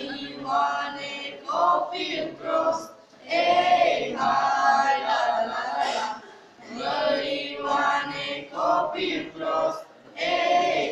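A group of voices singing a Romanian song together, in sung phrases separated by short breaths between lines.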